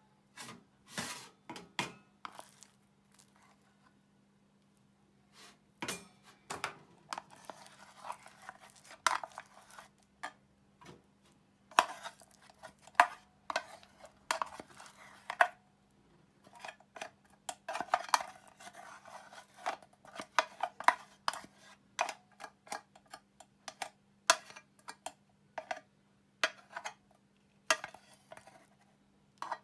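A metal utensil scraping and clinking inside an aluminium mess tin in a rapid, irregular series of short strokes, a few scattered ones at first and then a busy run from about six seconds in.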